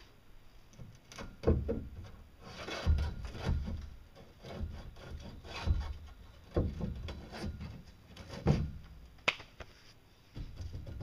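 A long metal pole being handled and set onto a boat's upright supports: irregular knocks, scrapes and rubbing, with a sharp knock about nine seconds in.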